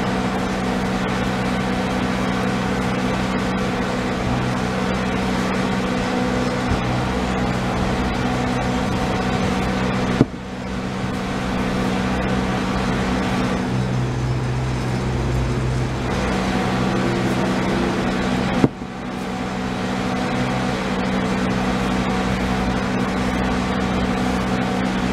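Two sharp knocks from a sledgehammer striking, about ten seconds in and again about eight seconds later, over a steady mechanical hum that has several fixed pitches.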